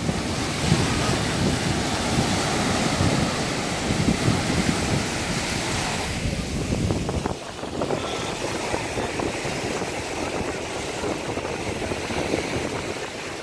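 Small surf waves breaking and washing up a sandy beach, with wind buffeting the microphone. The wind rumble eases a little about halfway through.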